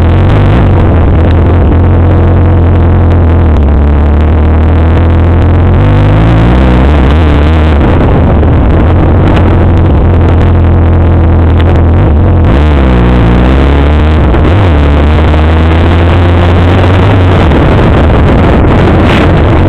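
ATV engines running loud and revving hard, their pitch climbing and falling with the throttle. The note dips sharply and climbs again about twelve seconds in.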